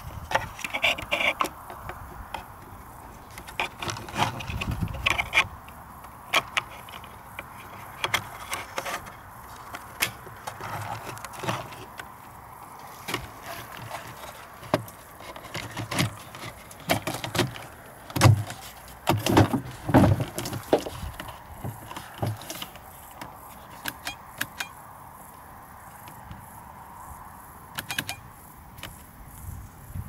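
Hard plastic clicks, rattles and knocks as a Skoda Fabia's hazard light switch and dashboard vent trim are handled and pressed into place, with a run of heavier knocks about two-thirds of the way through.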